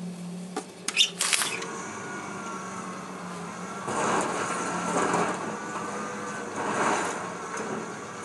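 Excavator demolishing a wood-frame house: its engine running while timber cracks and debris crunches, with a cluster of sharp cracks about a second in and several swells of crunching noise later.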